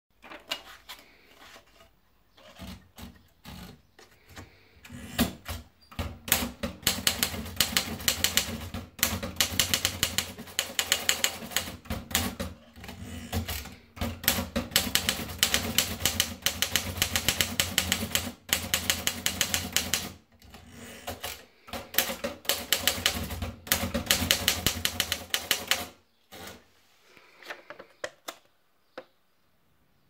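Torpedo model 30 manual portable typewriter: paper is fed in and rolled onto the platen, then rapid runs of sharp key strikes type three lines, with short pauses between runs. A few single clicks follow near the end before it goes quiet.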